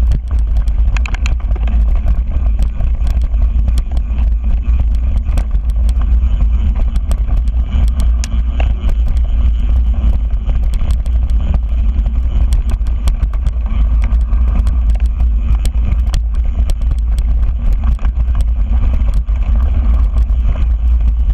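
Mountain bike rolling over a rough dirt singletrack, heard from a handlebar-mounted action camera: a steady low rumble of wind and ground noise on the microphone, with constant small clicks and rattles from the bike and tyres over the bumps.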